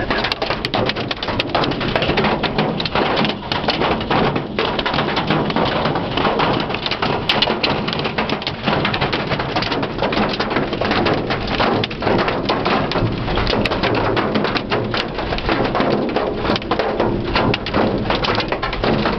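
Hail and heavy rain pelting the car's roof and windshield, heard from inside the cabin: a dense, steady clatter of countless small impacts.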